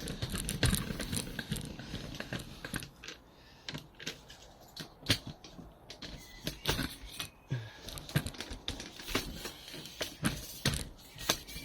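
Irregular clicks, taps and light metallic knocks of hand tools and parts being handled while working on a motorcycle's front end.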